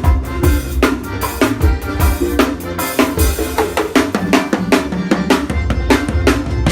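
Drum kit played in a fast, busy pattern of kick, snare and cymbal hits, with pitched instruments sounding underneath.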